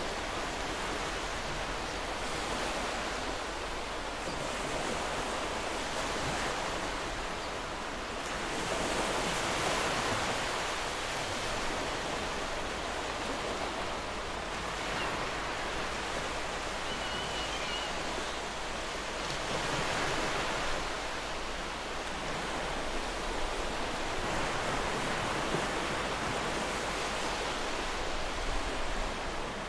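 Ocean surf washing onto a beach: a continuous rush of breaking waves that swells and eases every several seconds.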